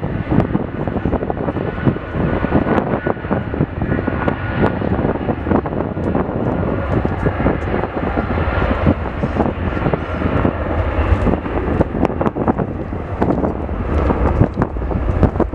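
Jet2 Boeing 757's Rolls-Royce RB211 engines at takeoff power during the takeoff roll: loud, steady jet noise with a rough, crackling edge.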